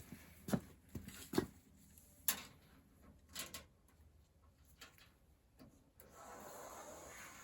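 A few sharp clicks and knocks from working on sheet-metal ductwork, then a softer scraping or rustling near the end.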